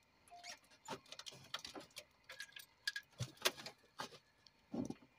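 Irregular light clicks and taps with a few brief faint tones; no engine is running.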